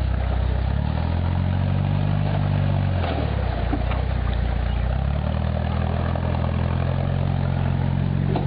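Land Rover Discovery engine pulling at low revs as the 4x4 crawls over creek-bed rocks, the revs rising about a second in, easing off around three seconds, and rising again around five seconds.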